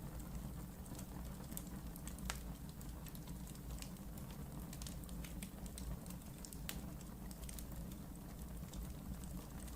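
Wood fire burning in a fireplace: irregular sharp crackles and pops over a steady low rumble of the flames, with a few louder pops now and then.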